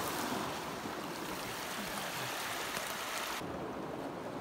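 Sea surf washing on a rocky shore: a steady hiss of water, whose higher part drops away abruptly about three seconds in.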